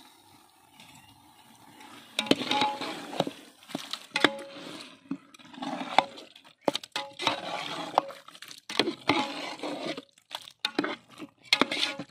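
A long-handled metal slotted spatula stirring chicken pieces in yogurt masala in a large metal pot, scraping and clinking sharply against the pot's sides and bottom again and again. The stirring sounds start about two seconds in.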